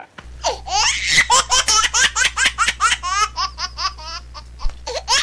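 Hysterical, high-pitched laughter in rapid rhythmic bursts, about three to four a second, over a steady low hum.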